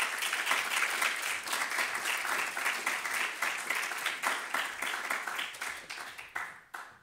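Audience applauding, a dense run of clapping that tapers off and stops near the end.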